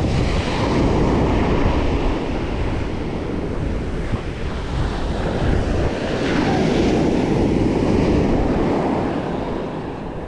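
Surf breaking and washing up the beach, with wind buffeting the microphone. The sound swells twice, near the start and again about six seconds in, as waves come in.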